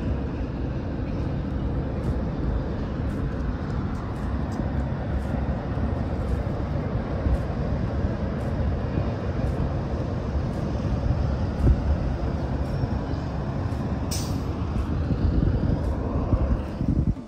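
Steady low rumble of a running vehicle, with a brief sharp hiss about fourteen seconds in.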